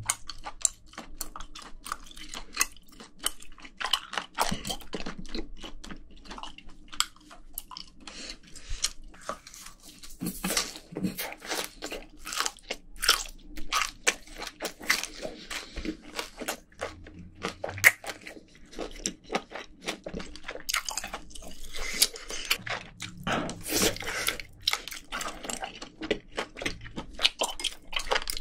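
Boiled octopus being chewed close to a microphone: a continuous run of sharp mouth clicks and smacks, with a denser stretch near the end.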